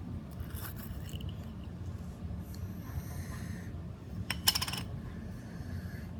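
Slime being squeezed and pressed by hand, giving scattered sticky crackles and a louder burst of crackling pops about four and a half seconds in, over a steady low hum.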